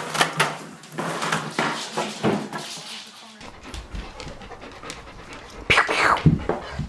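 A dog panting in quick, even breaths, about two a second. Near the end a louder, short pitched sound cuts in.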